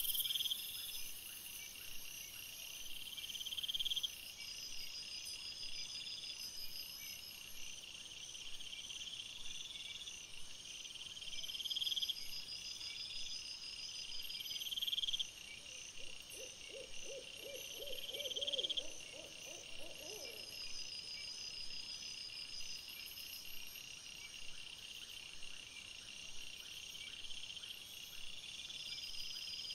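Night insect chorus: repeated high chirps every second or two over a steady hum, with a rapid run of lower pulsed calls lasting about five seconds around the middle.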